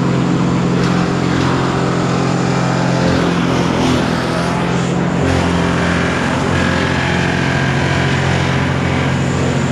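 Large engine running steadily under a hum of machinery, its low tone shifting about five seconds in.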